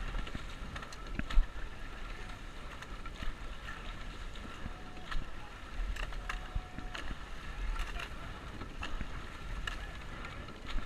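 Rowing eight under way at race pace: oar blades splashing and water rushing past the hull, with sharp clacks of the oars in their oarlocks repeating through the strokes. Wind rumbles on the microphone.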